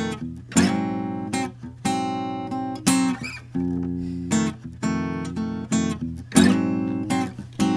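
Acoustic guitar strumming chords in an instrumental passage of a rock song, with no singing: a chord is struck about once a second and left to ring and fade. A steady low hum lies underneath.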